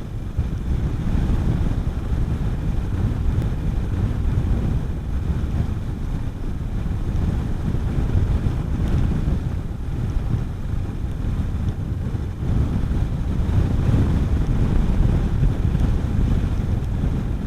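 Steady wind noise buffeting the rider's microphone on a moving Honda CB400SS, over the low rumble of its single-cylinder engine.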